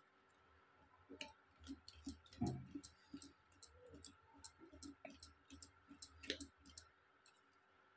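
Wire whisk beating cake batter in a steel bowl, its wires clicking against the metal side in a faint run of about three or four ticks a second.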